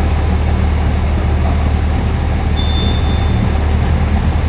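A heavy vehicle engine idling steadily with a low drone. A faint thin high whine sounds briefly in the middle.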